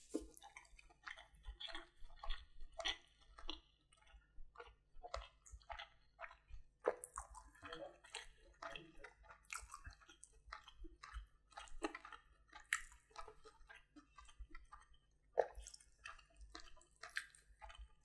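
Close-miked chewing of a mouthful of vegetable fried rice: a steady run of irregular wet mouth smacks and clicks.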